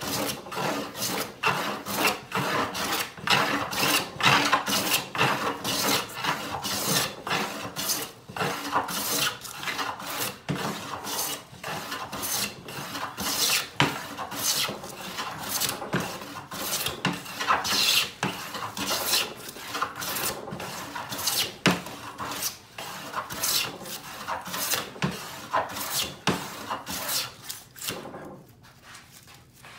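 Hand plane being pushed along a wooden board in quick, repeated strokes, the blade shaving the surface smooth on each pass. The strokes stop about two seconds before the end.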